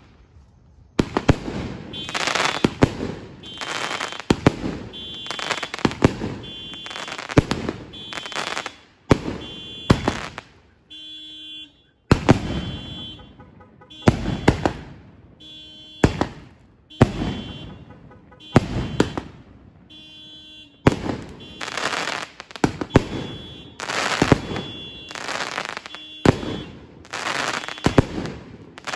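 Consumer firework cake firing shot after shot, roughly one a second. Each shot is a sharp report followed by a crackling burst that trails off, with a brief lull near the middle.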